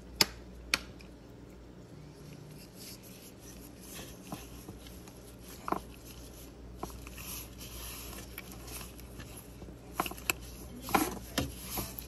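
Gloved hands handling the wiring and plastic fittings of a dishwasher's pressure sensor: scattered faint clicks, rubbing and rustling. Two sharp clicks in the first second are the loudest, and a few more clicks come near the end.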